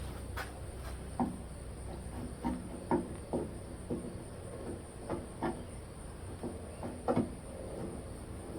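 Irregular short clicks and light knocks of hand tools working screws and bolts out of a car door, one or two a second, over a steady low hum.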